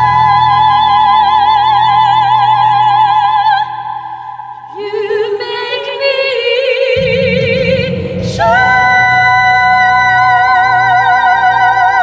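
Two women singing an operatic-style duet, holding long high notes in harmony with a wide vibrato over a low accompaniment. About four seconds in the held notes break off and a lower voice sings a short rising phrase. Then, about eight and a half seconds in, both voices come back in together on a long held chord.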